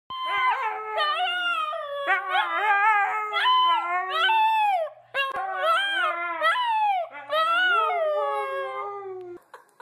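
A husky puppy howling in long, wavering calls that rise and fall in pitch, broken by two brief pauses about halfway and about two-thirds of the way through.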